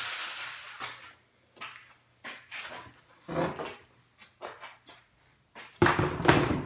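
A jigsaw motor spinning down at the start after cutting plywood, its sound falling away within the first second. Then come scattered knocks and scrapes of plywood being handled, with a louder clatter of wood about six seconds in as the cut-out piece is pulled free.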